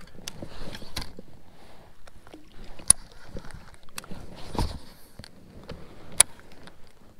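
Handling noise from a baitcasting rod and reel held close to the microphone: scattered clicks and rustling, with two sharp clicks about three seconds apart.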